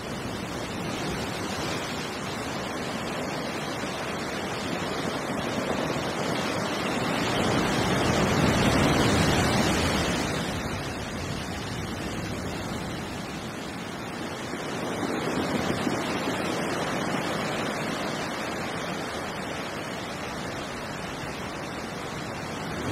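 Water rushing over rocks in a shallow stream, a steady noise that swells louder twice, about a third of the way in and again past the middle.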